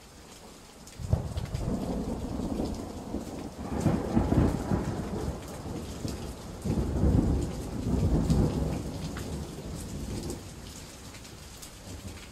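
Thunder rolling over steady rain: a deep rumble breaks in sharply about a second in, swells twice more, then dies away near the end, with the light patter of rain throughout.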